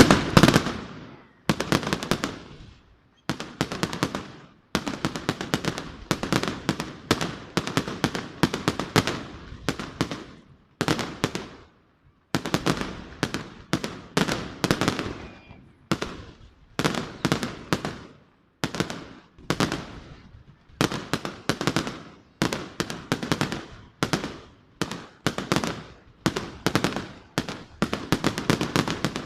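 Fireworks going off in a long run of crackling bursts: each burst is a rapid volley of sharp cracks lasting about a second, followed by a short pause, over and over.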